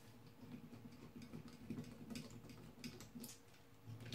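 Precision screwdriver turning a small screw into the metal frame of a circuit board holder: faint, irregular small clicks and ticks, with a slightly louder click near the end.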